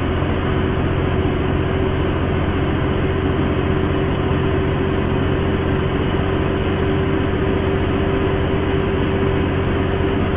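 Caterpillar C15 diesel engine of a 170-tonne road train holding its climbing gear up a hill at about 1700 rpm under heavy load, heard from inside the cab. It is a loud, even drone with a constant whining tone over it.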